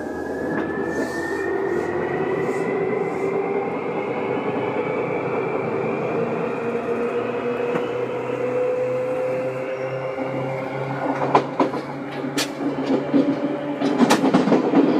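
Seibu 2000 series electric train running, its motor whine rising slowly in pitch as it gathers speed. Sharp clatter from the wheels comes in over the last few seconds.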